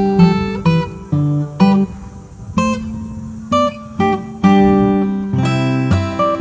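Background music: acoustic guitar being plucked and strummed, chords with notes ringing out between strokes.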